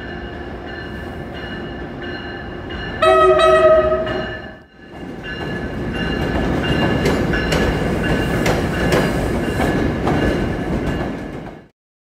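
Train at a station with a steady hum and whine, then a train horn sounding one loud chord blast of about a second, about three seconds in. After a short break, a train rolls past with its wheels clicking over the rail joints, cutting off abruptly near the end.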